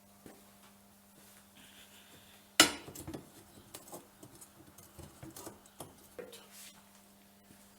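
A sharp metallic clank about two and a half seconds in, followed by a run of lighter clinks and knocks as small metal pieces are handled and set down.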